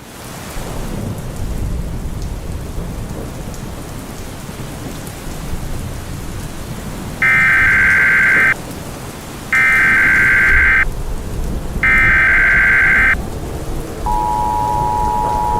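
Rain with rumbling thunder, over which three loud bursts of Emergency Alert System (SAME) header data sound, each just over a second long with short gaps between. Near the end the steady two-tone EAS attention signal comes in and holds.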